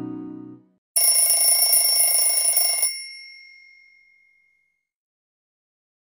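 Nokia C3-01 clock alert tone: a ringing, bell-like alarm that starts abruptly about a second in, rings for about two seconds, then dies away. Before it, the tail of a plucked, guitar-like tone fades out.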